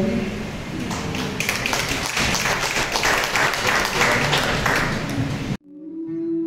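A crowd applauding, a dense patter of many hands clapping that swells about a second in and cuts off abruptly near the end, where music begins.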